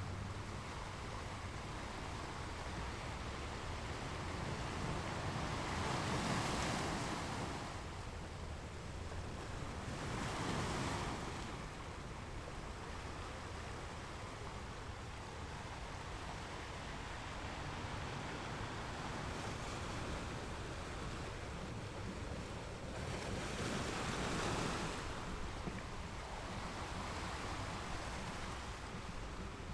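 Ocean waves washing onto a shore. A steady low rumble of surf runs under it, and three waves swell and break about 6, 10 and 24 seconds in.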